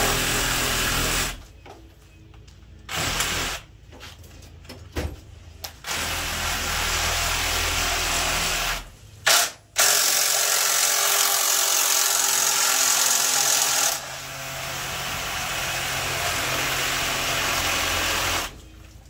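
Cordless power tool whirring in several bursts, some short and then one long run of about eight seconds that eases off a little partway through, with a sharp click just before the long run.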